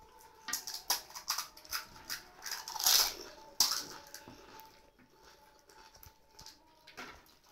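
Crisp fried fuchka (pani puri) shells being cracked open with the fingers and crunched in the mouth: a quick run of sharp crackles and clicks with a louder burst about three seconds in, thinning out to scattered small clicks in the second half.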